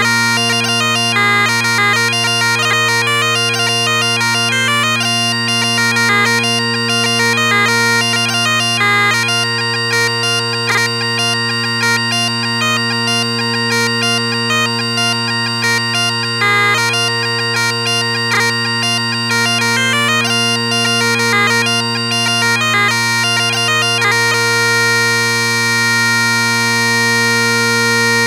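Bagpipes playing a brisk jig in B flat: a fast chanter melody full of quick grace-note ornaments over steady, unchanging drones. About 24 seconds in the melody stops on a long held final note over the drones.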